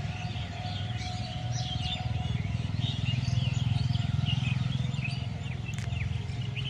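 Many small birds chirping in quick, overlapping calls over a steady low hum.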